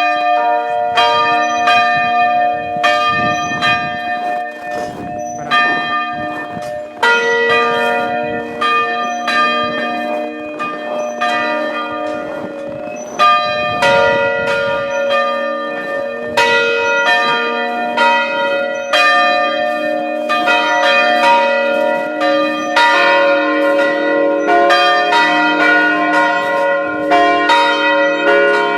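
Several church bells ringing together, struck in quick, continuous succession so their tones overlap and ring on. A deeper bell joins about two-thirds of the way through.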